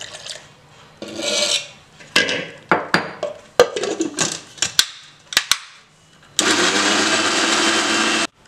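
Milk poured into a steel mixer-grinder jar, then a run of sharp clicks and knocks as the clear lid is set on and clamped. Near the end the electric mixer grinder runs loud and steady for about two seconds, blending frozen strawberries, sugar and milk, and cuts off abruptly.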